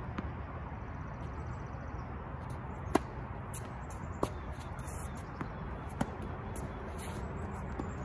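Tennis ball being struck by rackets and bouncing on a hard court during a singles rally: a few sharp pops, the loudest about three seconds in and others about four and six seconds in, over a steady outdoor background.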